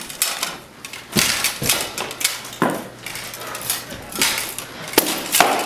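Armoured combat bout: swords striking shields and plate armour in a run of sharp, irregular clattering blows, the sharpest about five seconds in.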